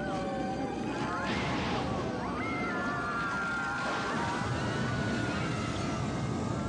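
Horror film soundtrack: a dense, steady mix of sound effects and music with several wavering, gliding cries or tones layered over it.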